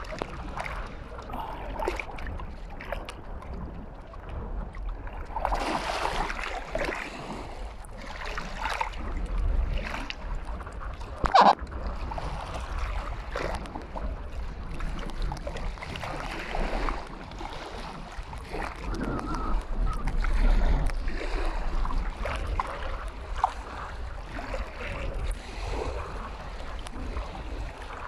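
Wind buffeting the microphone with a steady low rumble over choppy lake water splashing and lapping. A single sharp knock stands out about eleven seconds in.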